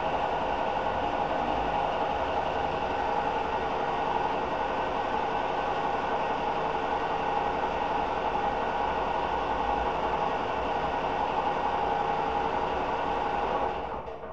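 A machine running steadily: an even mechanical drone with several steady tones that cuts off suddenly just before the end.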